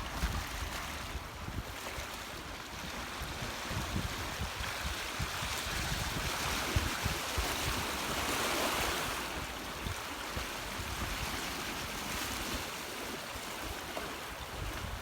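Sea waves washing onto the shore, one wave swelling up and sighing away around the middle, with wind buffeting the microphone.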